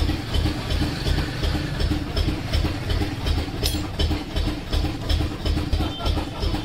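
Background music with a heavy, steady beat of about three pulses a second.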